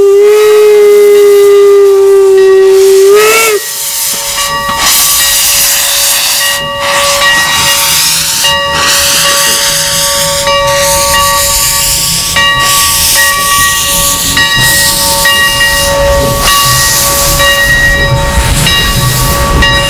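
Steam whistle of the Leviathan, a replica 4-4-0 steam locomotive, blowing one steady held note that wavers and cuts off about three and a half seconds in. Then loud steam hissing from the locomotive as it moves slowly, surging regularly about every two seconds, with a fainter steady tone beneath.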